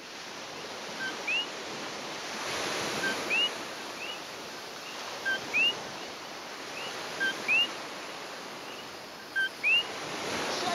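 Ocean surf washing steadily, with common coquí frogs calling over it again and again: each call is a short low 'co' followed by a higher rising 'kee'.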